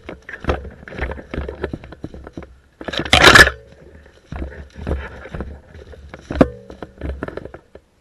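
Footsteps crunching through dry leaf litter and brush, with twigs and branches scraping against the wearer; a loud burst of rustling about three seconds in and a sharp crack near the end.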